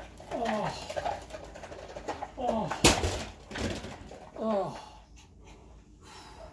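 Repeated whimpering cries, each sliding down in pitch, coming about once a second. A single sharp knock near the middle is the loudest sound.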